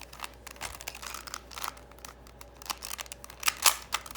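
Irregular clicks and rustles of something being handled close to the microphone, with two louder clicks near the end.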